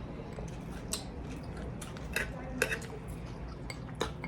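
Cutlery clinking against dishes while eating, about five sharp scattered clicks over a low steady background hum.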